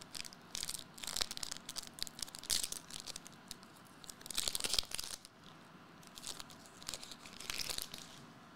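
A foil trading-card pack wrapper being torn open and crinkled by hand, in a string of short rustling bursts, the longest a little past four seconds in.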